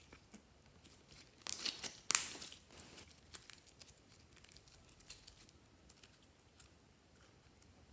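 Slime being mixed, crackling and popping with sharp clicks. The clicks come in a dense cluster about one and a half to two and a half seconds in, then grow sparser and fade out.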